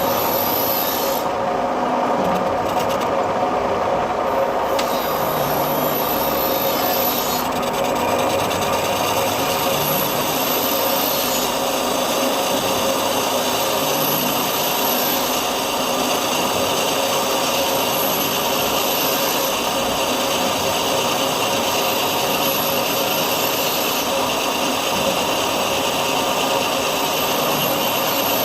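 Metal lathe turning a cast iron part: a steady scraping cutting noise over the machine's running hum, with a faint high whine that comes and goes.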